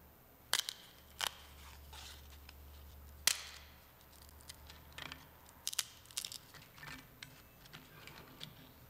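Irregular small clicks and crackles of a priest handling the communion host and altar vessels close to a clip-on microphone, a few of them sharp and loud, over a faint steady low hum.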